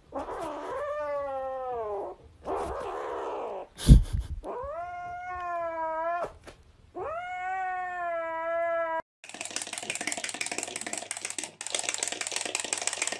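Grey kitten giving three long, drawn-out meows, the first sliding down in pitch, with a sharp knock between the first two. About nine seconds in, a fast mechanical clattering takes over.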